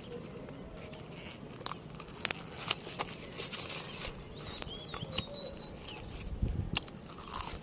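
Crunching and chewing of a crisp mont lay pway snack, with sharp cracks in the middle. A few short bird chirps come about halfway through, and there is a low thump near the end.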